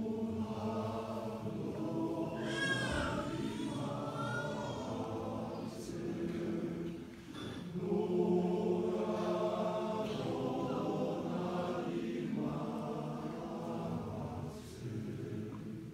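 Choir singing unaccompanied in sustained chords, with short breaks between phrases about seven and twelve seconds in. A few seconds in, a high wavering note rises above the chords.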